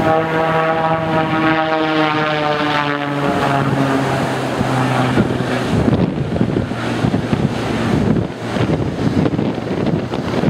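Extra 300 aerobatic plane's propeller engine droning overhead, its pitch slowly falling over the first several seconds as it passes and pulls up, then fading. Gusty wind buffets the microphone throughout and takes over in the second half.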